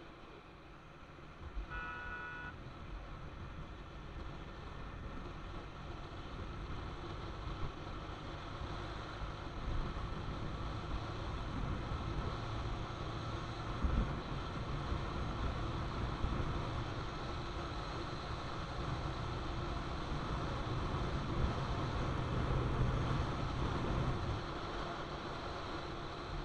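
Bajaj Pulsar 220F motorcycle on the move, its single-cylinder engine running under steady wind and road noise that grows louder about ten seconds in. A short vehicle horn beep sounds about two seconds in.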